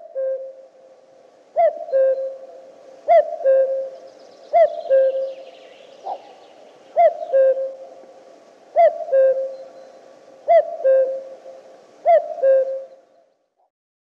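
Common cuckoo calling its two-note 'cuck-oo', the second note lower than the first, repeated about every second and a half to two seconds. This is the male's advertising call.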